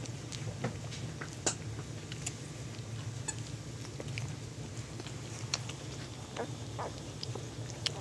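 Very young puppies shuffling about, with scattered small clicks and a couple of short rising squeaks about six and a half seconds in, over a steady low hum.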